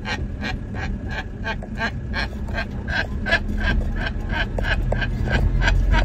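Blue-and-yellow macaw giving a fast, regular run of short honking calls, about three a second, over the low running of the van's engine in the cab.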